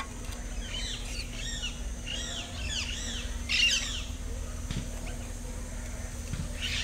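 Birds calling: a run of quick chirps that rise and fall in pitch, with a louder flurry of calls about halfway through.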